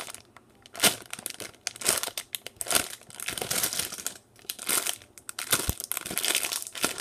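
Thin clear plastic bags around squishy foam toys crinkling as they are handled and turned over. The crackles come in irregular bursts with short pauses.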